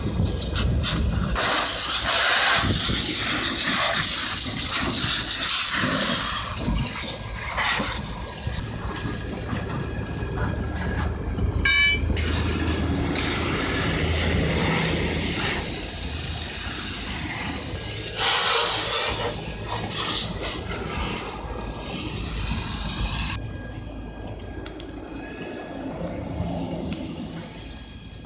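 Firefighters' hose nozzle spraying water onto a burning car, a loud rushing hiss that surges and eases as the nozzle is worked, with steam coming off the hot wreck. It is quieter and thinner near the end, where the spray is turned on smouldering roadside grass.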